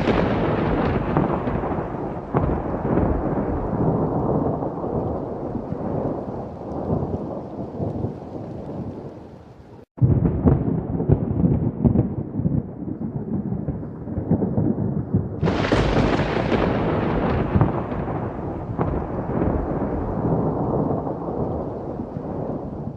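Thunderstorm: a thunderclap with a long rumbling decay over rain. The sound breaks off abruptly and restarts with more rumbling, and a second sharp crack of thunder comes about two-thirds of the way through, then rolls away.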